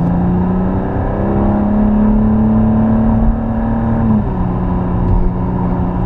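Maserati Levante's V6 engine pulling under acceleration, its note climbing steadily, then dropping suddenly about four seconds in as the automatic gearbox shifts up.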